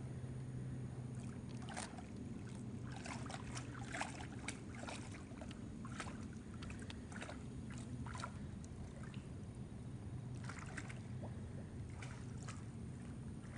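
Feral hog wading and feeding in shallow swamp water: irregular small splashes and sloshes, in clusters, over a steady low hum.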